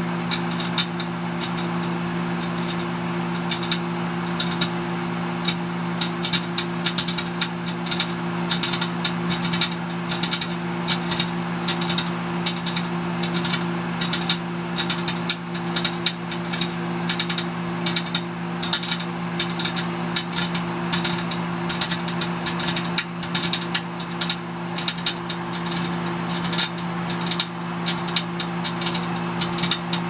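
Microwave oven running with a steady mains hum while a vacuum tube inside arcs. Irregular sharp electrical crackling becomes denser from about six seconds in.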